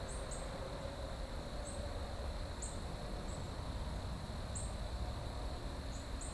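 Quiet outdoor ambience: a steady high insect drone with short, high chirps every second or so, over a low background rumble.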